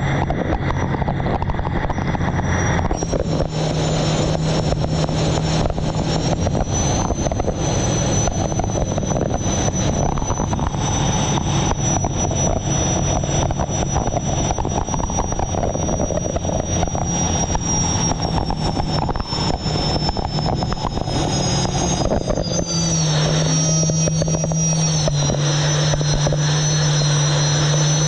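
Onboard sound of a turbine-powered unlimited hydroplane's Lycoming T55 running hard: a high turbine whine and low drone over a dense rush of wind and water. Near the end the whine drops in pitch and settles lower as the rushing noise eases.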